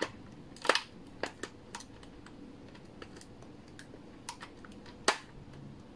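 Magazine of a WE AK-74 gas blowback airsoft rifle being rocked into the magazine well: scattered sharp clicks and knocks, about ten in all, the loudest about five seconds in.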